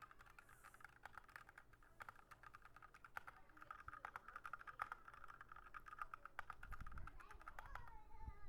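Faint, fast typing on a Razeak RK-X44 mechanical keyboard with Cherry MX Red linear switches, a dense run of irregular key clacks.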